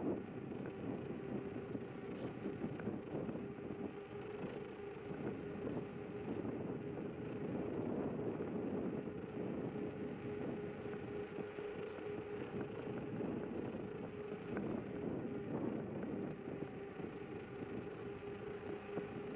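Zero 10x electric scooter riding along a concrete path: a steady motor whine over continuous tyre and wind noise.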